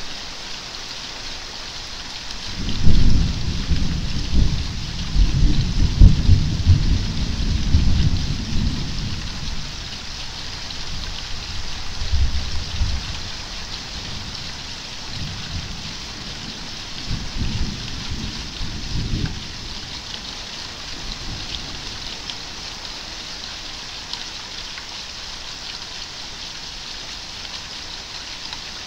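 Steady rain falling with an even hiss. A long, deep rumble of thunder comes in about three seconds in and lasts several seconds, and shorter, weaker rumbles follow twice later.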